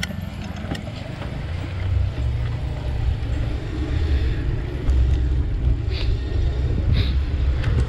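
Wind rumbling on the microphone of a camera riding along on a moving bicycle, a low, uneven buffeting that swells and dips.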